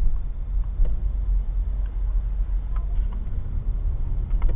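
Car driving slowly, a steady low rumble of engine and tyres heard from inside the cabin, with a few faint clicks.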